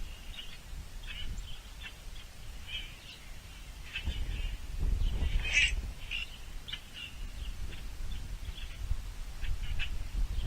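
Birds calling outdoors: a scatter of short chirps and squawky notes, the loudest a harsh burst about halfway through. A low rumble rises under them in the middle.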